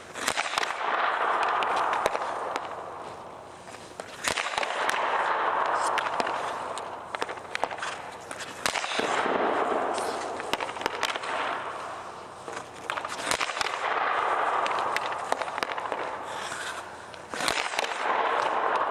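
Ice hockey shots at a goalie, about every four and a half seconds: a sharp crack of stick on puck, then a couple of seconds of scraping noise on the ice, with smaller clicks and knocks between the shots.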